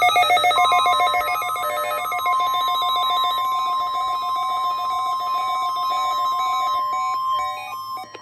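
Weather radio warning alarm: a single steady tone of about 1050 Hz, starting about half a second in and cutting off near the end, over a fast, stepping, warbling pattern of electronic beeps.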